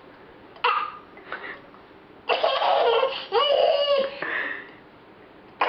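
Toddler's voice in high-pitched, pitch-bending bursts without words. A short one comes about half a second in, then a longer, louder stretch of about two seconds from a little past two seconds in.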